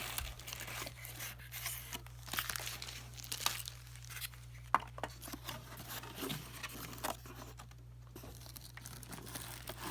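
Plastic packaging crinkling and rustling as the parts of a cordless phone set are unwrapped, with irregular handling clicks and one sharper click about halfway through.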